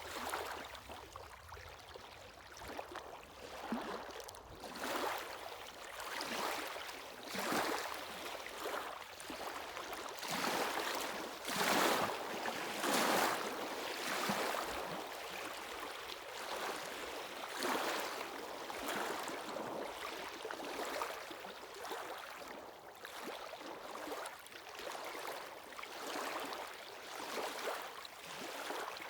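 Sea waves breaking and washing up a shore, in repeated surges of splash and hiss every second or two, loudest near the middle.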